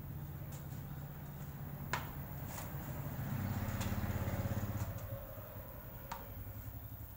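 A steady low motor hum that swells louder for a second or so around the middle, with a few light knocks and taps as a removed tubeless scooter tyre is handled.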